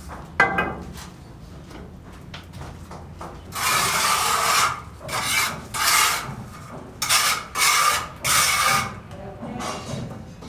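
Rasping, scraping strokes, about six in a row in the middle of the stretch, with a single sharp knock near the start.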